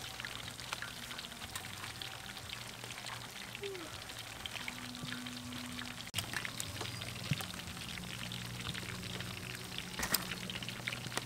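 Chicken wings deep-frying in a wok of hot oil: steady sizzling and crackling. A sharp click comes near the end.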